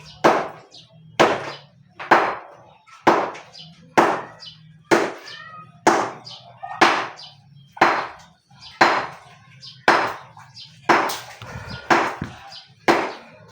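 Steady blows of a hand tool, hammer-like, striking hard building material, about one sharp strike a second, each with a short ring.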